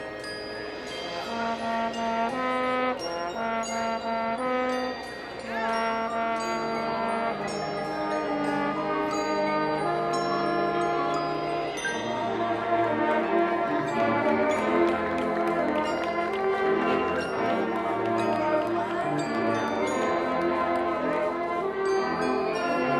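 High school marching band playing: held brass and woodwind chords with struck mallet percussion ringing over them. Low brass joins about halfway, and the music grows steadily louder.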